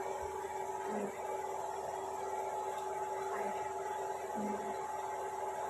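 Steady electrical hum with a few constant tones held at an even level.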